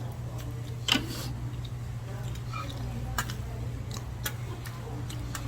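Light clicks and clinks of tableware, such as chopsticks or spoons tapping dishes, scattered through, with one louder click about a second in. A steady low hum runs underneath.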